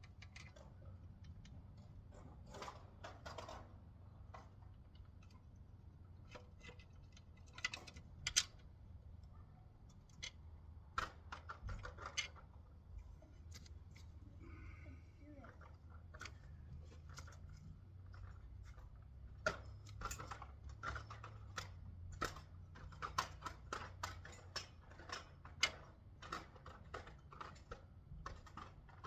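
Hand tools and hardware clicking and clinking in short scattered bursts while a small engine is bolted back onto a garden tiller, with runs of rapid clicking around the middle and again later on, over a low steady hum.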